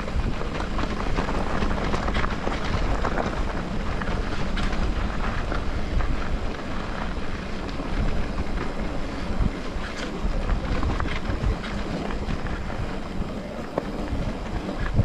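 Mountain bike descending a rough dirt trail: steady wind rumble on the microphone, tyre noise over the ground and many small knocks and rattles from the bike.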